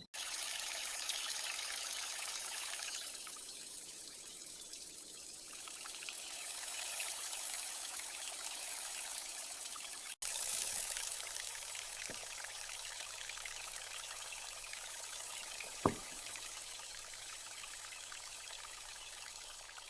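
Liquid pouring and trickling steadily in a small cooking setup, in two stretches split by a brief cut, with one short click in the second stretch.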